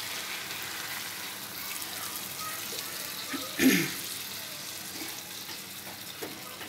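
Beef stock poured in a steady stream from a pot into a pan of fried beef and cauliflower, the pouring slowly growing quieter. A brief knock sounds about halfway through.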